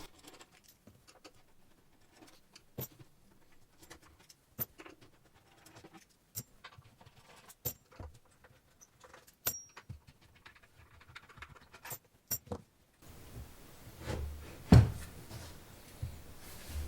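Scattered light clicks and taps from hands handling the receiver chassis during disassembly. After an edit about 13 seconds in, the background hiss rises, and there is one louder thud about 15 seconds in.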